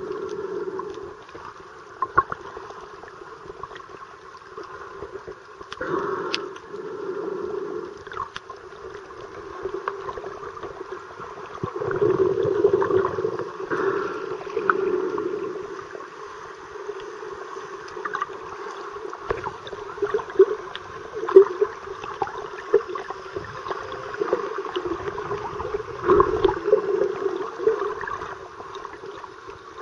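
Muffled underwater water noise picked up by a submerged camera, with gurgling and scattered small clicks, swelling louder a few times.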